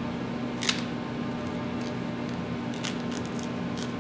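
Light plastic clicks and snaps from handling an upright vacuum cleaner as it is taken apart: one sharp click just under a second in, then several fainter clicks scattered through the rest, over a steady low hum.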